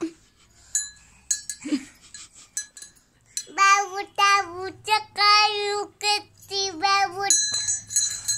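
A young child's high voice singing short sing-song phrases, starting about three and a half seconds in and stopping near the end, after a quiet start with a few light clinks.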